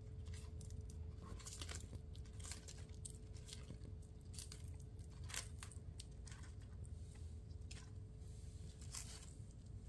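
A tortoise biting and tearing at its food: irregular sharp crunches about once or twice a second.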